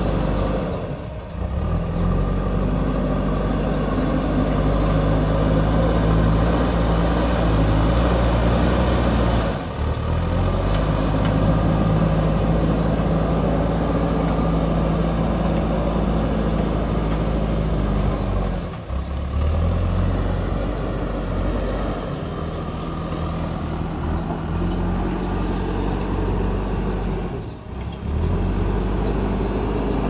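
A large diesel engine runs steadily under load, its pitch rising and falling a little. It dips out briefly about every nine seconds.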